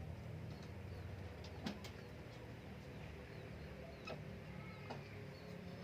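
Zebra dove (perkutut) cooing, with short high chirps of small birds and a couple of sharp clicks just under two seconds in.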